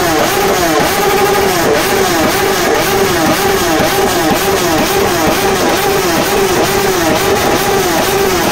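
Motorcycle engine revved over and over in an even rhythm, about one and a half blips a second, its pitch dipping and climbing again with each blip.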